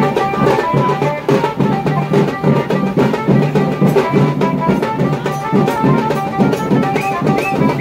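Music: fast, dense drumming under a melody of short high notes and a low bass line.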